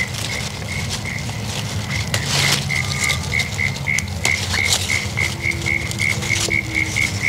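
A cricket chirping steadily, about four short chirps a second, over rustling and snapping of lettuce leaves being picked by hand.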